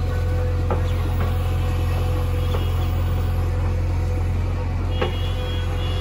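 JCB 3DX backhoe loader's diesel engine running steadily while the backhoe arm lifts a loaded bucket, with a few short knocks, the loudest about five seconds in.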